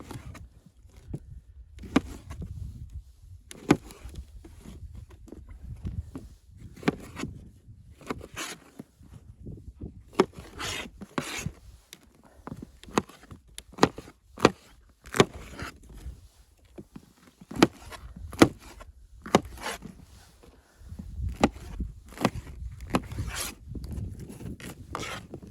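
A run of irregular sharp knocks and scrapes, about one or two a second, over a low rumble that comes and goes.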